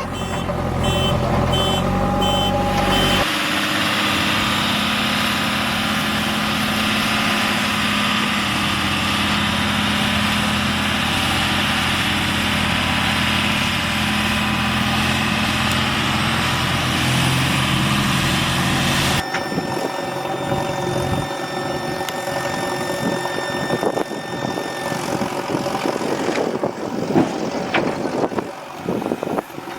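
Diesel engines of earthmoving machinery running steadily. A reversing alarm beeps about twice a second at the start. The sound changes abruptly about 3 seconds in and again about 19 seconds in, and scattered knocks follow near the end.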